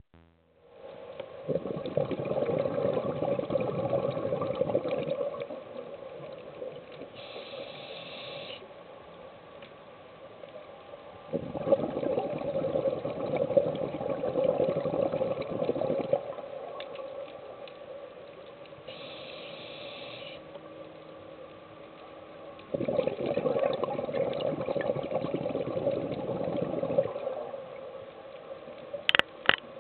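Scuba diver breathing through a regulator underwater: three long gurgling rushes of exhaled bubbles, about ten seconds apart, with quieter hissing inhalations between them. A few sharp clicks near the end.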